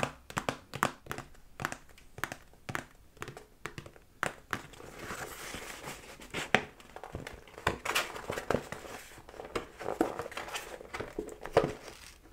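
Paper takeout boxes being handled: a string of light taps and knocks as they are moved and set down, then from about five seconds in the folded top flaps of one box are pulled open, with paper rustling and crinkling among the knocks.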